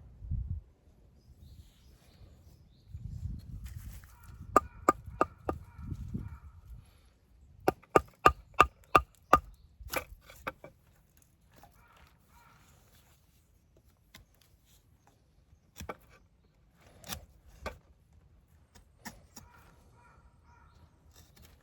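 Wood being chopped or split at a campsite: sharp blows in two quick runs, about three a second, each with a slight ring. A few single blows follow later.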